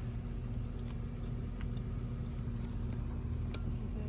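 Steady low mechanical hum with a constant tone, and a few faint clicks.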